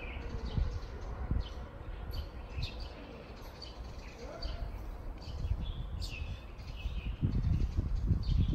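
Small birds chirping in short, scattered calls, over a low outdoor rumble that grows heavier near the end.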